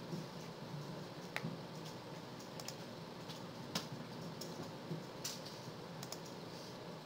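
Irregular clicking of computer keyboards and mice, a dozen or so sharp clicks, over a steady low room hum.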